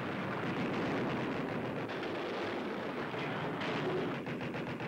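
Shipboard anti-aircraft guns firing: a dense, continuous rattle of shots that turns into a rapid, evenly spaced string of shots near the end.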